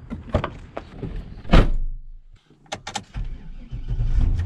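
Clicks and knocks, then a vehicle door shutting with one loud thunk about a second and a half in. After a brief drop-out come a few more clicks, and a low vehicle rumble starts near the end.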